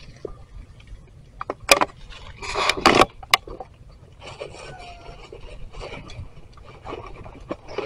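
Dry wood snapping and scraping: a few sharp cracks, then a loud rasping scrape about two and a half to three seconds in, followed by softer rustling and scattered small clicks.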